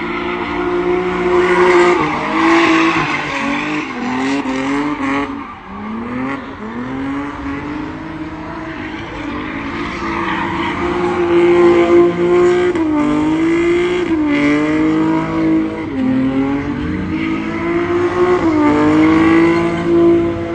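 A car engine revved hard while doing donuts, held at high revs with its pitch dropping and climbing again every second or two. Tyres spin and squeal on the asphalt underneath.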